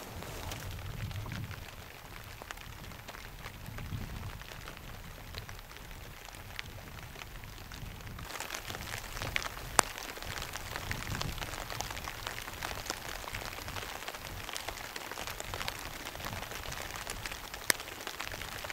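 Steady patter of light rain with scattered sharp drop ticks and some low rumble; the hiss grows a little brighter about eight seconds in.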